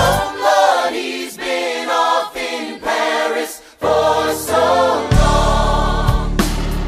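Musical-theatre ensemble choir singing over a band track. For the first few seconds the voices stand almost alone with no bass, and the full accompaniment with bass comes back in about five seconds in.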